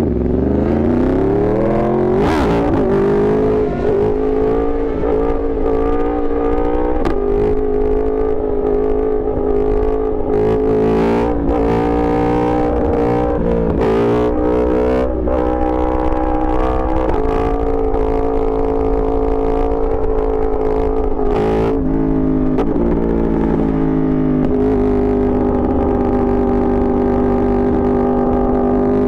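Yamaha R1 sport bike's inline-four engine running under way. It winds down in pitch at the start as the bike slows, then holds a fairly steady pitch, with a few brief drops and rises in the middle as the throttle is blipped and gears change.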